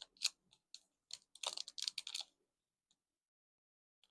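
Light clicks, taps and rustles of cardboard box packaging being handled and opened, a cluster of them in the middle, then a pause.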